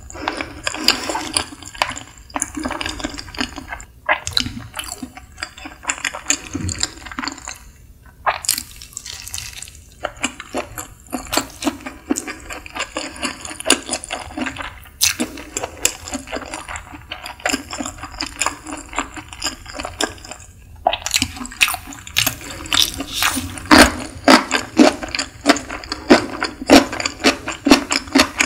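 Close-miked chewing of nigiri sushi: wet mouth sounds with many quick smacks and clicks, broken by a few short pauses, and louder over the last several seconds.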